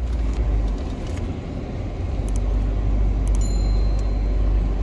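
Car driving, heard from inside the cabin: a steady low rumble of engine and tyres, with a few faint clicks and rattles.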